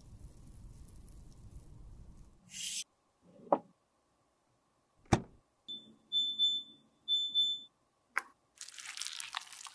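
Sharp clicks and two steady electronic beeps from a subscribe-button animation, then a click and about a second of scraping as a lipstick mould is pulled open.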